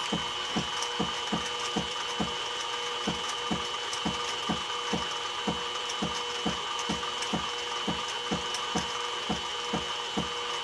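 Stepper-driven axis of a CNC-converted mini mill being jogged in step mode, giving a steady run of short mechanical clicks, about three a second, over a steady high whine. The axis is inching an edge-finder probe toward the workpiece a step at a time.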